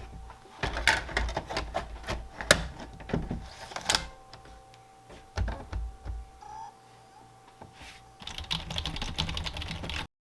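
Rapid clicking and tapping of typing on a computer keyboard, in two spells with a sparser stretch between, over a faint steady electronic tone. It cuts off abruptly near the end.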